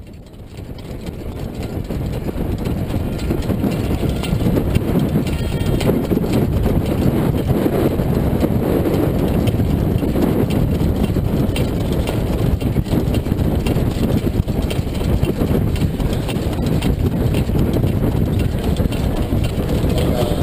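Hoofbeats of a harness horse on a dirt track, heard from a sulky-mounted camera, under a steady low rumble of wind and movement on the microphone. The sound rises over the first two seconds, then holds steady.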